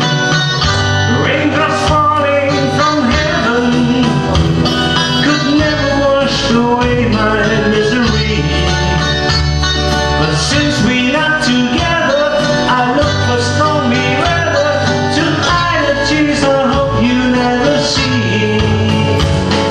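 Live country-style song: a man singing while playing an acoustic guitar, over a steady bass line that shifts notes every few seconds.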